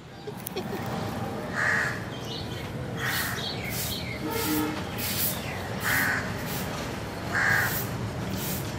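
Crows cawing: about four harsh calls spread out over several seconds, over steady background noise.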